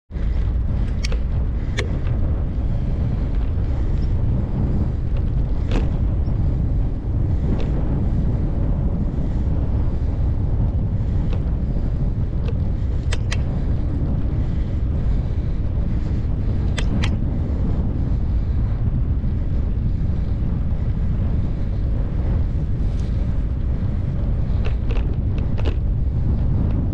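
Wind buffeting the microphone of a moving action camera: a loud, steady low rumble, broken by a dozen or so brief sharp clicks.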